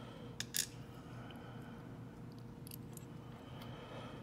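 Small metal clicks of steel tweezers handling tumbler pins and a brass lock plug during repinning: two sharp clicks about half a second in, then a few fainter ticks near the three-second mark, over a faint steady hum.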